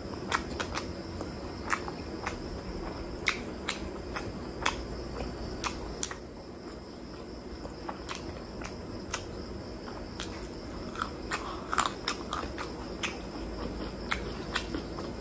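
Close-miked chewing of a mouthful of spicy chicken heart, liver and gizzard curry with rice. Sharp wet mouth clicks and smacks come every second or so, most thickly about eleven to twelve seconds in.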